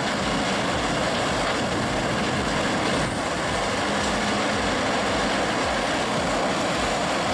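Large industrial brush shredder running under load: a steady, dense grinding roar of material being torn up by its high-speed rotor, with an engine hum underneath.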